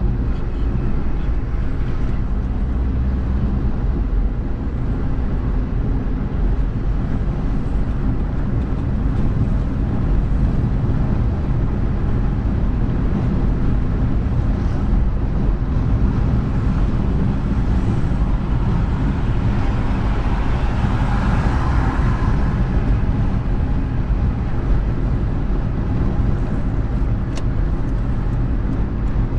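Car driving on a city street, heard from inside the car: a steady engine and tyre rumble, with a brief swell of hissier road noise about two-thirds of the way in.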